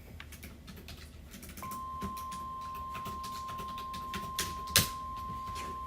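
NOAA Weather Radio's single-tone warning alarm (about 1050 Hz) starts about a second and a half in and holds steady, signalling an incoming tornado warning. Light clicks are scattered throughout, with a sharper click near the end.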